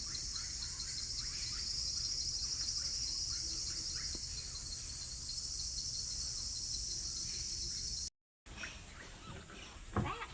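Dense rainforest insect chorus: a steady, high, finely pulsing buzz with faint bird chirps beneath it. It cuts off abruptly about eight seconds in, leaving quieter forest ambience with one brief sound near the end.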